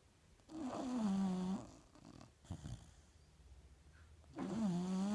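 Snoring of a six-month-old sleeper: two long pitched snores, one about half a second in and one near the end, each dipping in pitch and then holding one steady tone, with a short softer breath between them.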